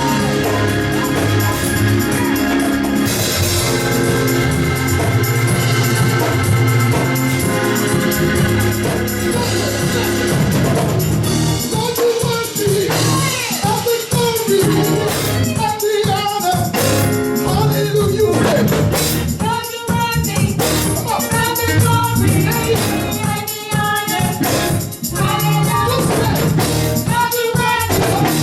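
Live gospel music: sustained organ chords with singing, and from about halfway in a steady drum beat joins.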